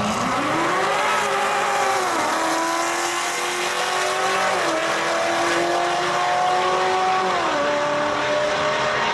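A Nissan GT-R NISMO's twin-turbo V6 and a Corvette C7's supercharged 6.2 LT1 V8 at full throttle off a drag-strip launch. The engine pitch climbs and drops back at each upshift, three times, about two, four and a half and seven and a half seconds in.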